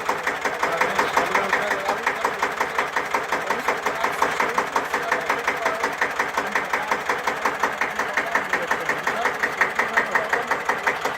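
Single-cylinder air-cooled diesel engine of a 1954 Deutz F1L612 tractor idling with a steady, even firing beat.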